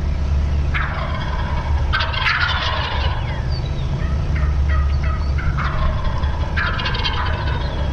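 Wild turkey toms gobbling several times, with a run of short notes in the middle, over a steady low rumble.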